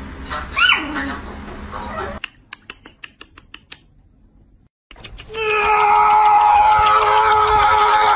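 A poodle puppy gives a short rising-and-falling yelp, then, after a few seconds of faint clicks, a loud, long, steady high cry held for about three seconds that drops away at the end.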